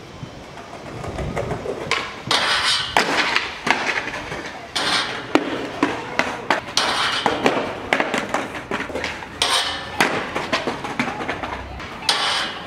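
Skateboard on a metal stair handrail: the board grinding and sliding along the rail in repeated passes, with sharp knocks and rolling wheels, and people's voices mixed in.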